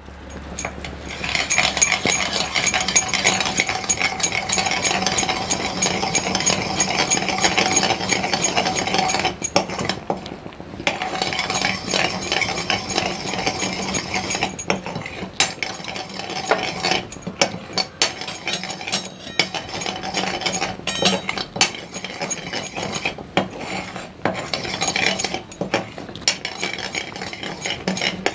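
Steel spoon stirring and scraping around a steel pan of thick, boiling sugar syrup, with many small metal clicks and a frothing hiss as the syrup foams up after a pinch of soda goes in. The stirring pauses briefly about ten seconds in.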